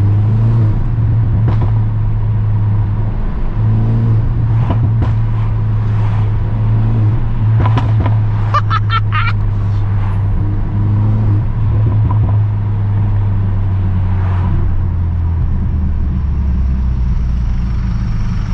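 In-cabin drone of the Mercedes-AMG A35's 2.0-litre turbocharged four-cylinder under way, settling lower near the end. Sharp exhaust crackles come in now and then, with a quick burst of them about halfway through, from the remapped engine running without its rear silencer.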